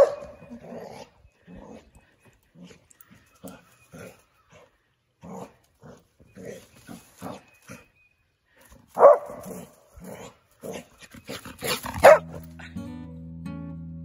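A dog barking, loudest at the start, about nine seconds in and again about twelve seconds in, with a run of short quick sounds between the barks. Acoustic guitar music comes in near the end.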